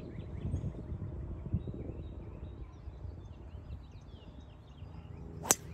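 A golf driver striking the ball off the tee: one sharp crack about five and a half seconds in. Before the strike, birds chirp over a low outdoor hum.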